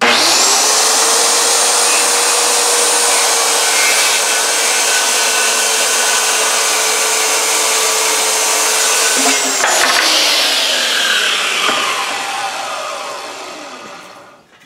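DeWalt corded circular saw starting up and cutting through a sheet of MDF, a steady loud whine for about nine seconds. The motor is then switched off, and the blade spins down with a falling pitch, fading out over the last few seconds.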